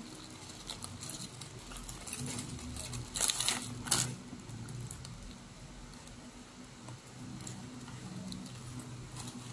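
Paper burger wrapper crinkling and rustling as it is handled, loudest in a short flurry of crackling about three to four seconds in.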